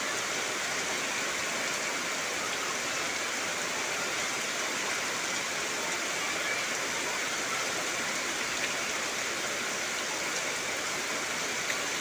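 Heavy rain falling steadily: an even, unbroken hiss with no separate drops standing out.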